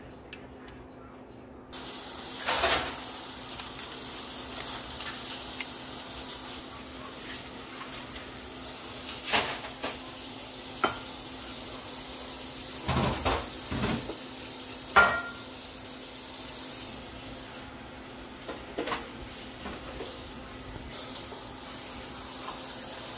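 Spoons scooping cobbler and knocking against a baking pan and a ceramic bowl: scattered clinks and scrapes, the loudest about fifteen seconds in, over a steady hiss that starts about two seconds in.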